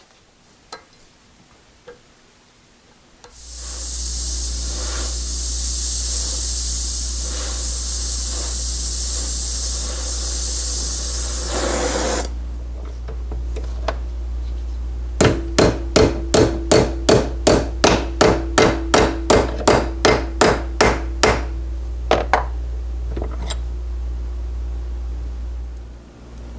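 An electric bench tool starts about three seconds in and runs with a steady hum, at first with a loud hiss for about nine seconds. Then a hammer strikes a steel piece held in a bench vise about twenty times in quick even blows, roughly three a second, with a couple more after a pause. The hum stops near the end.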